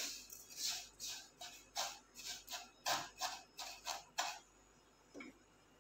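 Wooden spatula stirring vermicelli as it dry-roasts in a non-stick pan: a rhythmic scraping of about three strokes a second that stops about four seconds in, with one faint stroke after.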